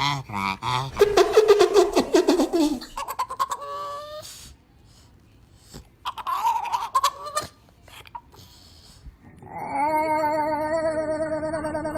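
A string of odd, warbling vocal calls in separate short bursts, broken by two quiet gaps; about two and a half seconds before the end a long, steady warbling call begins.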